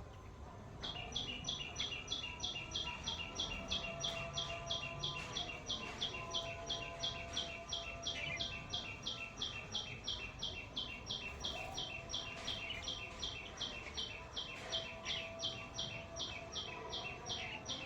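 A bird calling a long, steady series of short high notes, about three or four a second, starting about a second in.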